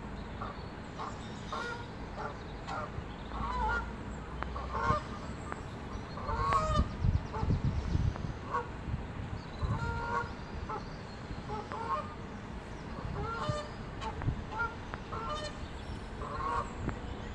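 Geese honking over and over in short calls. A low rumble swells for a few seconds in the middle.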